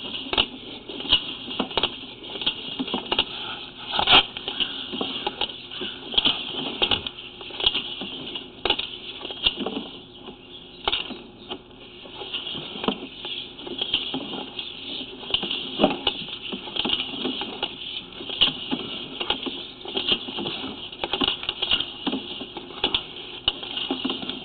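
Sewer inspection camera on its push cable being run down a sewer line: irregular clicks, knocks and clatter as the camera head and cable bump and scrape along the pipe, over a steady high hiss.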